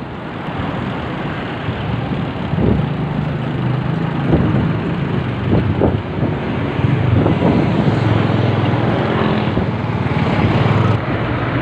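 Motorcycle engine running at low speed in traffic, its hum rising and falling a little with the throttle, under wind and road noise on a camera carried on the bike.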